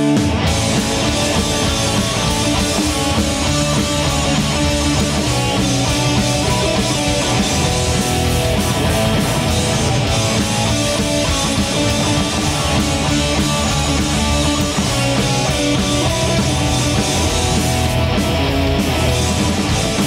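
Punk rock band playing live at full volume: distorted electric guitars, bass and drum kit in an instrumental passage, the drums and bass coming in right at the start over the guitar chords.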